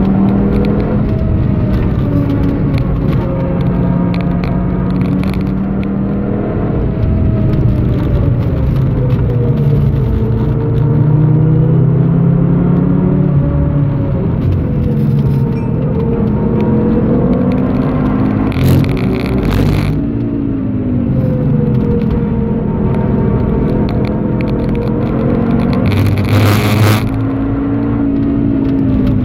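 Onboard sound of a 2013 Audi TT RS (8J) with its turbocharged 2.5-litre five-cylinder engine, tuned to about 405 hp, pulling hard through corners in fourth and then third gear, the engine note rising and falling with revs between roughly 3,500 and 5,200 rpm. Two short bursts of rushing noise come through, one a little past halfway and one near the end.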